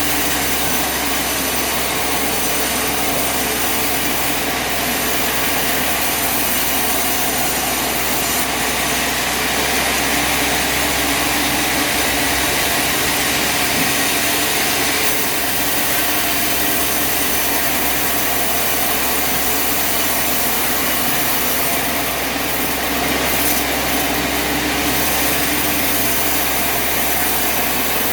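Bandsaw sawmill running and cutting through a log: a steady engine drone under the continuous noise of the blade in the wood.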